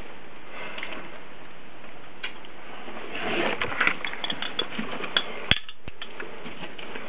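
Footsteps scuffing over rusty metal debris and rubble, with clinks and clatters bunched about three to five seconds in, over a steady hiss. One sharp click comes about five and a half seconds in.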